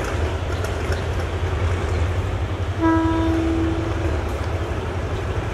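A diesel-electric locomotive hauling passenger carriages sounds one horn blast, just over a second long, about three seconds in, over a steady low rumble.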